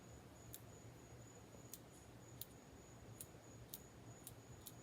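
Near silence with faint, irregular light clicks, about eight in all, as the small metal parts of a euro lock cylinder being taken apart are handled, over a faint steady hum.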